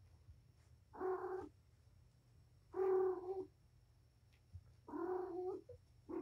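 Cat meowing three times: drawn-out, even-pitched calls about two seconds apart, each lasting roughly half a second or a little more.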